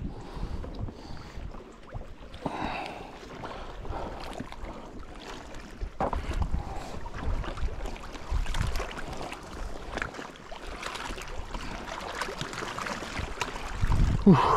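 Wind buffeting the microphone in uneven gusts, with scattered light clicks and crunches.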